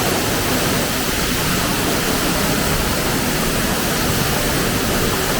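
Steady rushing noise, even and unbroken, with no change in level.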